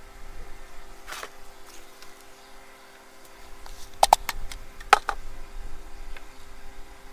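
A plastic 5-gallon bucket being upended and knocked over a wheelbarrow to empty out its soil. There is a short scrape about a second in, a quick cluster of sharp knocks about four seconds in, and two more knocks about five seconds in.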